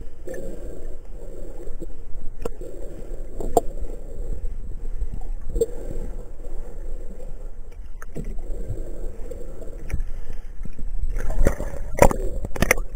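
Muffled underwater sound through a waterproof camera housing while a boat's hull bottom is scrubbed: a swishing that swells about once a second, with scattered sharp clicks. Near the end it turns to louder splashing and knocks as the camera nears the surface.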